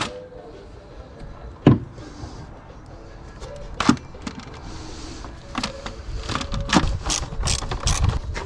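Clicks and knocks of plastic and metal as hands work the car's air filter housing to fit a new dry flow air filter, with the clicks coming thick and fast in the second half, over background music.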